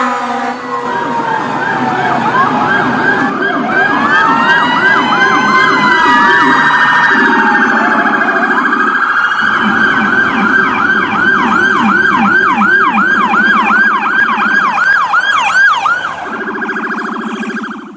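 Electronic emergency siren cycling through its tones: overlapping rising and falling wails, then a fast yelp of about three sweeps a second, with several siren tones sounding at once. It cuts off abruptly at the end.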